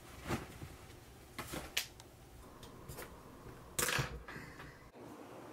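A few brief handling sounds, rustles and light knocks, with the loudest cluster about four seconds in.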